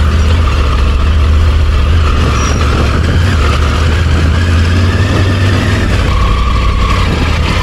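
Triumph Tiger 900 Rally Pro's inline three-cylinder engine running steadily under way, heard from the rider's seat, mixed with a hiss of wind and road noise.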